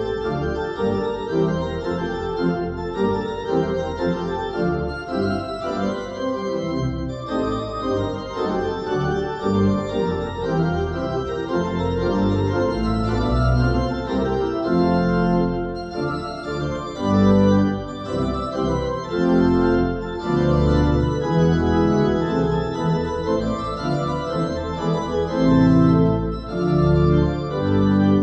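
Church organ playing sustained full chords with a moving upper line. Deep pedal bass notes come in more strongly from about twelve seconds in.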